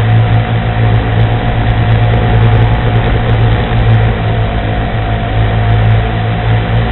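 Quadcopter's electric motors and propellers running steadily in flight, a loud, even drone with several held tones and no change in pitch, picked up by the camera's own microphone on board.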